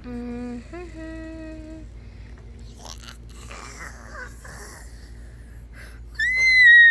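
A voice humming two held notes, then soft mumbled vocal noises. Near the end comes a loud, high-pitched squeal that falls slightly in pitch.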